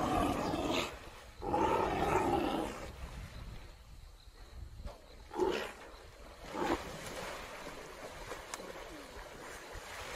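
Lions growling during a struggle with an antelope in the water: two long growls in the first three seconds, then two short ones a little after the middle.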